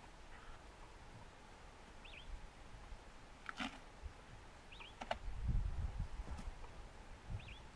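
African elephant bull crunching spekboom roots as it chews: a couple of sharp crunches midway, then a run of heavier crunching a little past the middle. A bird repeats a short high call about every two and a half seconds.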